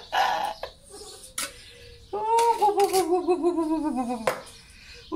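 Small dog whining: one long quavering moan starting about two seconds in and slowly falling in pitch, from a hungry dog waiting to be fed. A short rustle at the start, a click in between and a sharp knock at the end of the moan.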